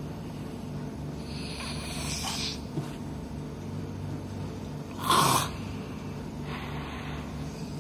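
A person snoring heavily, pig-like: breathy rasping breaths every few seconds, with one loud, short snort about five seconds in.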